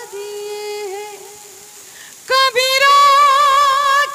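A woman singing a line of an Urdu ghazal in a long-drawn melody into a stage microphone. One held note fades out about a second in, and after a short break she sings a higher, louder note and holds it almost to the end.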